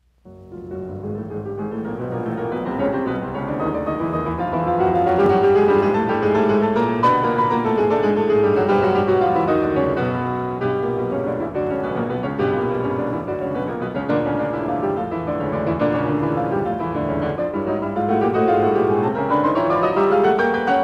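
Background piano music: a flowing run of notes that rises and falls, fading in over the first second.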